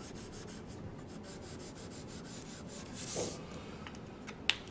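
Felt-tip grayscale marker rubbed back and forth on drawing paper in short, repeated strokes, laying in graded shading. A louder rustle comes about three seconds in, and a single sharp click comes near the end.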